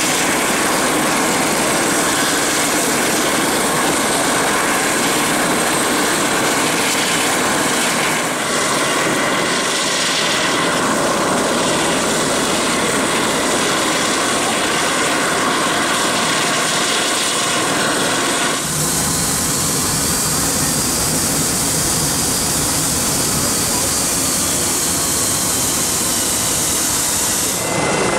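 Jet engines running on an airport apron: a loud, steady, even rush. About two-thirds of the way in, the sound turns brighter and hissier, with a faint high whine that slowly rises and falls, from the Gulfstream G300's turbofans.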